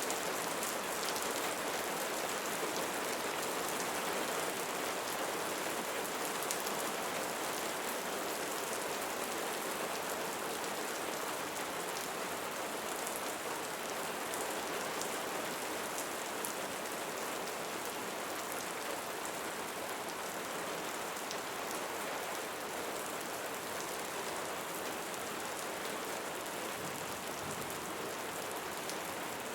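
Steady rain falling, an even hiss of rainfall with faint scattered drop ticks through it.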